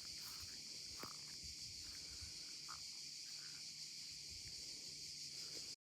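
Faint, steady high-pitched chorus of insects chirring, with a few soft knocks; it cuts off abruptly near the end.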